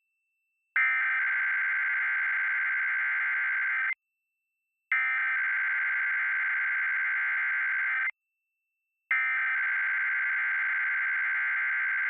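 Emergency Alert System SAME header: three bursts of digital data tones, each about three seconds long with about a second of silence between them. The bursts encode the start of a Required Weekly Test.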